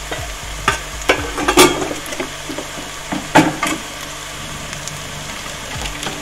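Chopped onions and garlic frying in oil with turmeric and chilli powder just added, sizzling steadily. A metal slotted spatula scrapes and knocks against the pan a few times, loudest about one and a half and three and a half seconds in.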